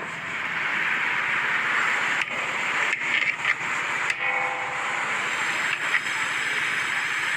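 Steady hiss of cooking, such as oil sizzling in a pot or a gas burner running, broken by a few abrupt cuts.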